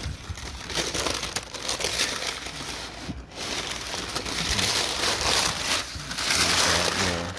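Shoebox tissue paper crinkling and rustling as it is handled and pulled back, with the rustling growing louder in the second half.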